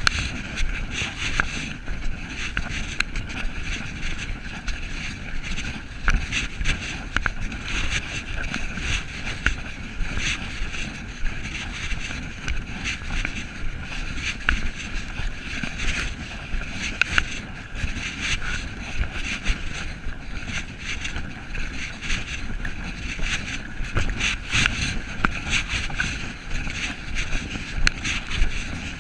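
Walking sounds picked up by a body-worn camera: a steady rush of wind and rubbing on the microphone, with many small irregular crunches and rustles of footsteps and brushing through leaves, brush and snow.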